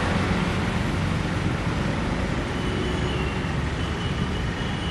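Steady road traffic noise: a continuous low rumble of motor vehicles.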